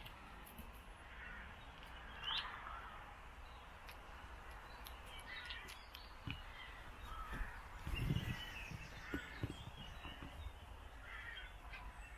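Birds calling faintly in short, scattered calls, with a soft low thump about eight seconds in.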